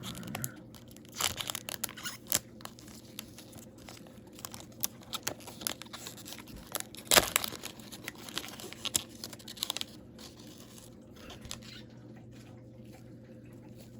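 Plastic wrapper of a hockey card pack being torn and crinkled open, in scattered short crackles with one louder rip about seven seconds in, dying down over the last few seconds.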